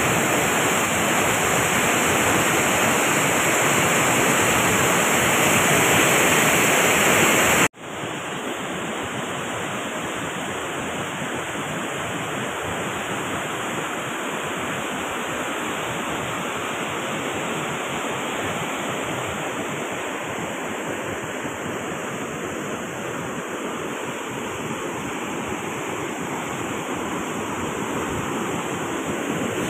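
Floodwater rushing through a dam's causeway and sluices, a steady noise of flowing water. About eight seconds in it cuts off abruptly and comes back quieter and duller.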